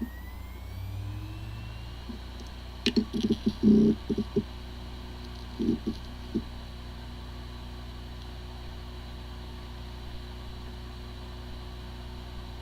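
Hard drive running with firmware corruption: a whine rises in pitch over the first two seconds, a flurry of short knocking bursts comes about three seconds in and a few more around six seconds, then a steady whir. This is the sound of a drive that spins fine but cannot be accessed by any computer.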